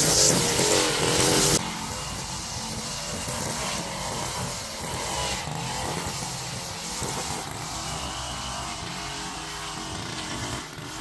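Small gasoline engine of lawn equipment running. It is loud with a strong hiss for about the first second and a half, then drops suddenly and runs on more quietly.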